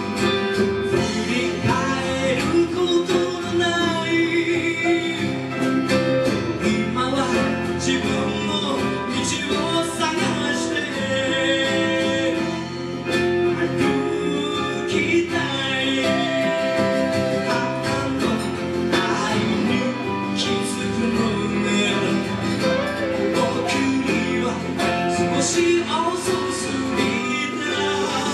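Live band playing a song: strummed acoustic guitar with electric guitar and bass, and a man singing the melody.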